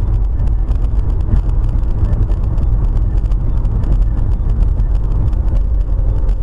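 Steady low drone of road and engine noise inside a moving car, picked up by a dashboard camera's microphone at highway speed.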